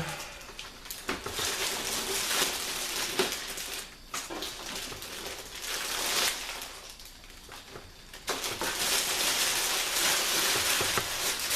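Packaging rustling and crinkling as a boxed computer monitor is handled and unpacked, with scattered small clicks and knocks, easing off briefly about seven seconds in before starting up again.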